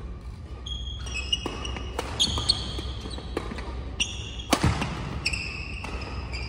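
Badminton doubles rally on an indoor court: shoes squeaking sharply on the court floor, mixed with the sharp cracks of rackets striking the shuttlecock and thudding footfalls as players lunge.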